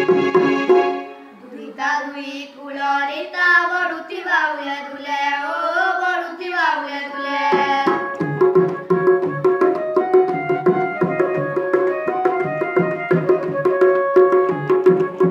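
Folk song performance on portable electronic keyboard and two-headed barrel drum. A voice sings a wavering phrase over the keyboard while the drum drops out; about eight seconds in, the drum and keyboard come back in together with a steady rhythmic instrumental passage.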